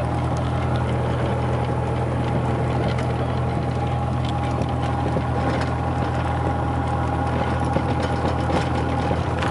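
Small airplane's engine running steadily at low power just after landing, a constant drone heard from inside the cabin.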